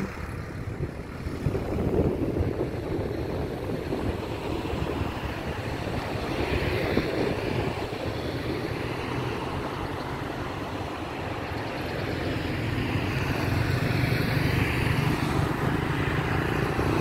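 Road traffic: cars and motorcycles passing close by one after another, their tyres and engines swelling and fading, with an engine hum growing in the last few seconds.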